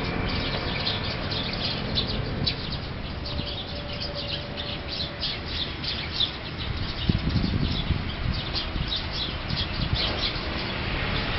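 Small birds chirping: many short, high chirps throughout, over a steady low rumble.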